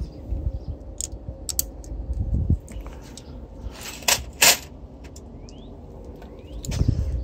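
A handful of sharp metallic clicks and clinks, from small hardware and tools handled during bike work, spread over a low rumble; the loudest pair falls about four seconds in.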